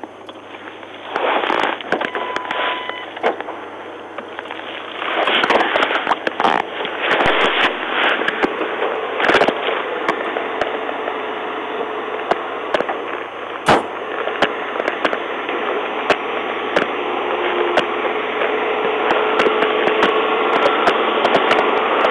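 Steady hiss and crackle with many scattered clicks and pops, the noise of a police cruiser's dashcam audio feed.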